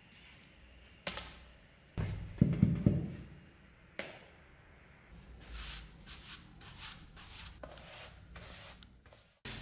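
A couple of sharp knocks and a heavy thud on the workbench, then a wide brush swishing over the wooden tabletop in repeated strokes, about two a second, as a liquid is brushed on.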